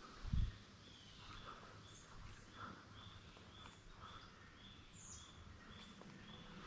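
Faint woodland ambience: a short high chirp repeating about twice a second, with one low thump just after the start.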